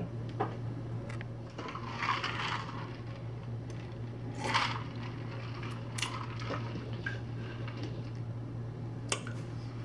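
A few quiet sips and swallows from a plastic cup, two soft swells a couple of seconds apart, with small mouth or lip clicks later on. A steady low hum runs underneath.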